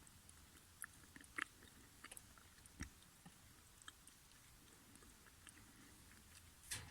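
Near silence: room tone with scattered faint clicks, a soft low thump about three seconds in, and a brief, slightly louder noise near the end.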